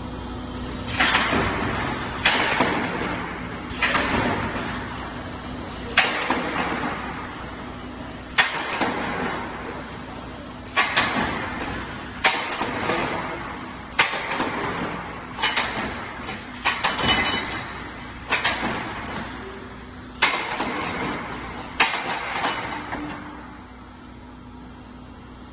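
Channel steel punching machine punching through steel C channel, about fourteen sharp metallic strokes each ringing away, one every one and a half to two seconds, over a steady machine hum.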